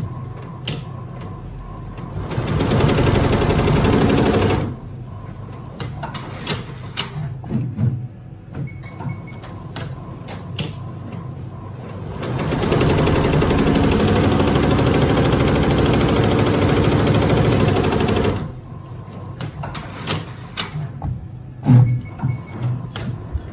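Multi-needle computerised embroidery machine stitching a logo. It has two stretches of rapid, steady stitching, a short one about two seconds in and a longer one of about six seconds past the middle, with quieter stretches of scattered clicks and ticks between them.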